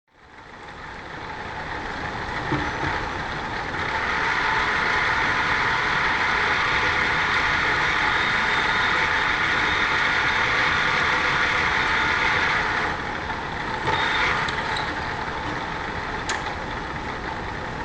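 Drill press running, its motor and spindle giving a steady machine hum that rises over the first few seconds. The sound drops about two-thirds of the way through, with a sharp click shortly after, then runs on more quietly.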